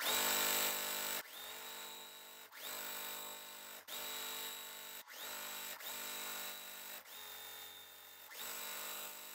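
Juki TL-2200 QVP Mini sewing machine stitching fabric at a steady speed, in about eight runs of a second or so, each split from the next by a very brief break.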